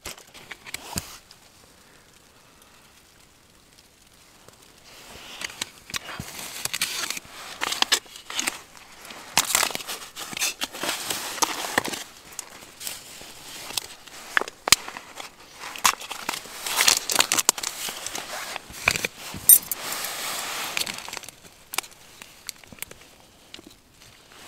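Crinkling and rustling of packaging and nylon gear being handled close up, with many small clicks and taps, starting about five seconds in and dying down near the end.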